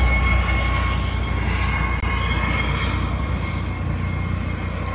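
Air ambulance helicopter flying low overhead: a rapid rotor beat under the steady whine of its turbine engines, slowly getting quieter as it moves away.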